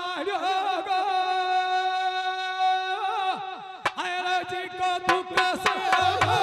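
A male folk singer holds a long, high note through a microphone and PA in nahda singing, with wavering turns at the start and a glide off the note a little past halfway. A low drum comes in near the end.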